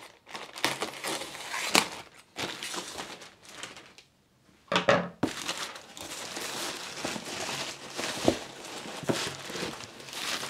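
Plastic mailer bag crinkling and rustling as it is cut open with scissors and pulled off a cardboard box, in irregular bursts with a short lull about four seconds in.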